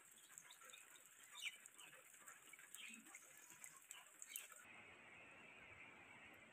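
Near silence: faint outdoor background hiss with a few faint, short chirps about a second and a half in, near three seconds and near four and a half seconds. The background changes abruptly just before five seconds.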